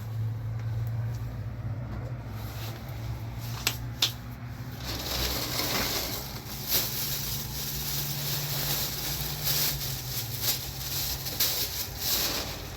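Vehicle engine running with a steady low hum, two sharp clicks about four seconds in, then a loud rushing hiss of road or wind noise from about five seconds in.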